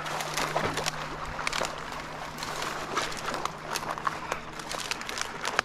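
Footsteps and crackling, snapping brush as someone pushes through dense, prickly shrubs: irregular clicks and rustles throughout, over a low steady hum.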